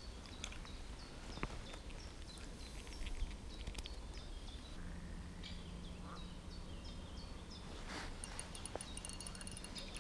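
Songbirds singing at dawn, many short chirps and falling whistled notes, over a faint low background hum. A low steady drone comes in about halfway through, and there are a couple of soft clicks.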